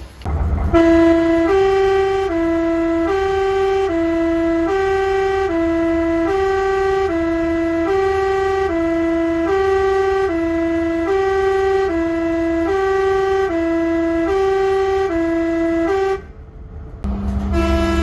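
A two-tone horn sounding a high note and a low note in turn, each held just under a second, over a low engine rumble. It breaks off near the end and starts again with a steady lower tone added beneath it.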